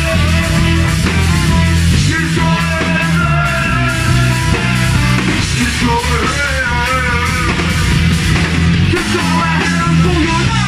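Live ska-punk band playing loud, with guitar, heavy bass and drums, a horn section and sung vocals.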